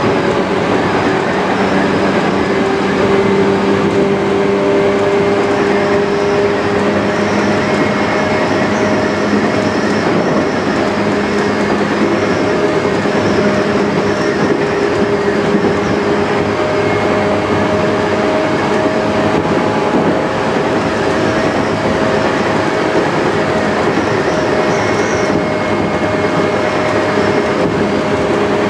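Tokyu 8500 series electric train running steadily from the motored lead car: wheel-on-rail rumble with the steady whine of the traction motors and gears, holding a nearly constant pitch.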